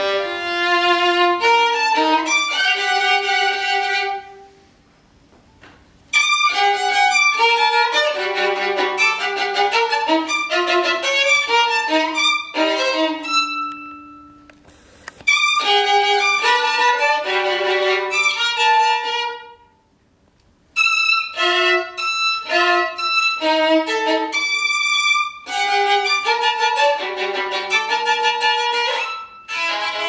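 Solo violin playing a bowed classical melody in phrases, with three short pauses where it falls almost silent.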